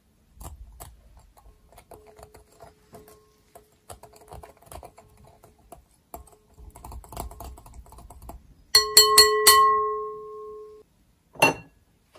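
Wire whisk beating a thin liquid in a glass mixing bowl, its wires rapidly clicking and scraping against the glass. About nine seconds in come four sharp metal-on-glass strikes that leave the bowl ringing, then one more knock.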